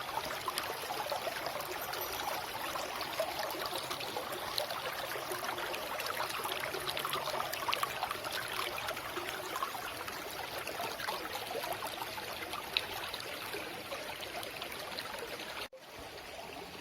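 Small stream of water trickling and babbling steadily over stones, flowing along a built channel. It cuts out abruptly for a moment near the end and then continues a little quieter.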